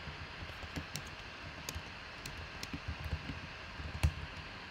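Typing on a computer keyboard: irregular keystroke clicks, with one louder click about four seconds in.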